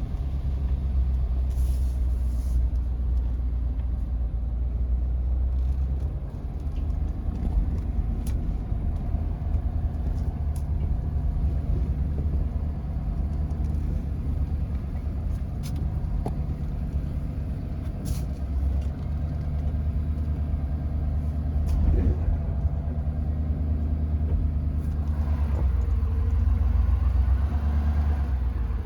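A car driving slowly up a rough back road, heard from inside the cabin: a steady low engine and road rumble, with a few short knocks and rattles as it goes over bumps.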